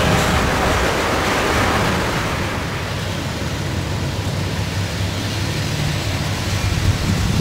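Freight cars rolling past with a steady rush of wheel-on-rail noise, which fades after about two seconds into the low, steady rumble of a diesel locomotive running slowly.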